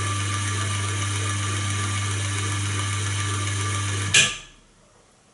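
Inverter-driven geared electric motor running with a steady hum and a whine. About four seconds in, a sharp click and the motor stops, its sound dying away within half a second.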